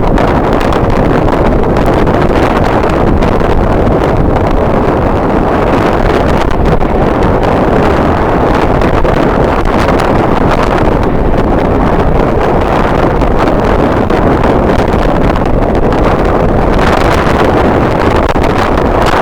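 Strong wind buffeting the microphone: a loud, steady rumbling rush with no distinct events.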